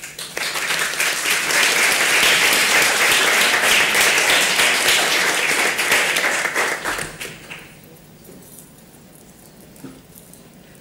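Audience applauding, swelling in the first second and dying away about seven seconds in, leaving quiet room tone.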